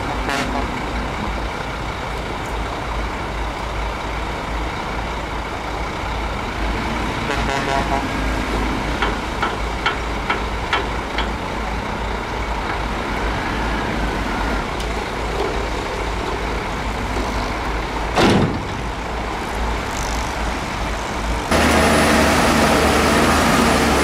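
Heavy diesel earthmoving machinery, a bulldozer and dump trucks, running steadily with a deep rumble. There are a few light clanks about a third of the way in and a single sharp bang about three-quarters of the way through. Near the end the engine noise becomes abruptly louder.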